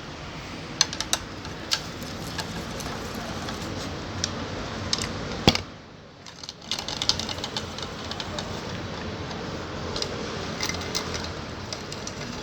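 Scattered metallic clicks and taps of screws and a hand tool as the bolts are fitted into a Honda CD 70 clutch cover, over steady background noise.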